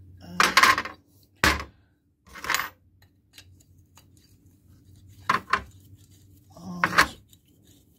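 Several scattered sharp metallic clicks and knocks as small steel lathe parts and a long hand tool are handled and set down on a chequer-plate metal bench.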